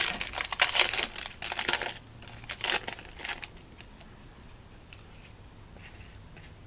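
A trading-card pack's foil wrapper crinkling and tearing as it is handled and opened. The crinkling is dense for about two seconds, comes in a few short bursts after that, then dies down to faint scattered ticks.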